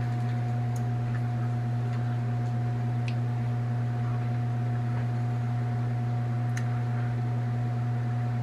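Steady low hum of a running kitchen appliance, with a few faint light clicks of a metal spoon against a ceramic soup bowl.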